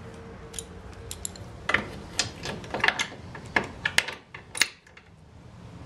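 Wrench tightening a 5/16-inch bolt down into a T-nut through a plywood floor: a string of about ten sharp, irregular metal clicks over a few seconds.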